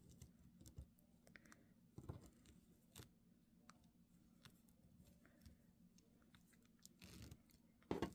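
Faint handling sounds from denim and sewing pins: scattered soft clicks and rustles, a few slightly louder around two, three and seven seconds in, over a low steady hum.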